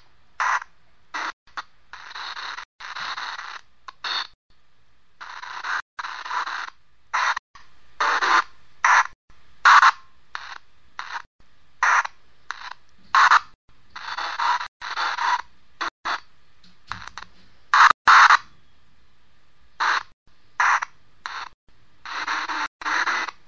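SV1 spirit box app on a phone putting out white noise chopped into short, irregular pieces of hiss, from a split second to about a second long, with brief gaps between them. This is the noise meant for spirits to speak through in an EVP session.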